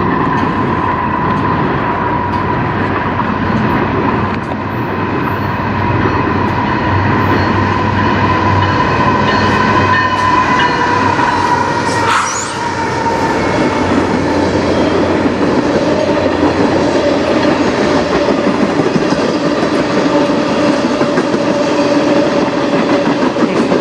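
A CN manifest freight train passing close by: a steady loud rumble of wheels on the rails with a clickety-clack, carrying steady squealing tones that drop lower about halfway through. A short sharp clank comes about 12 seconds in.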